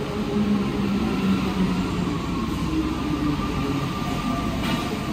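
Alstom NS-93 rubber-tyred metro train pulling into a station platform. There is a steady rolling rumble and a low motor whine whose pitch drifts downward as the train slows.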